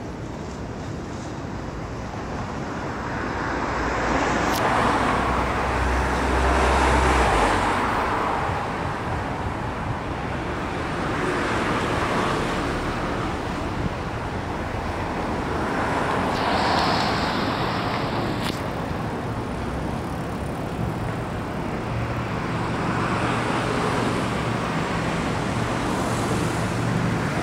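Road traffic: vehicles passing in waves that swell and fade every few seconds, with a low engine hum under the first swell and again near the end.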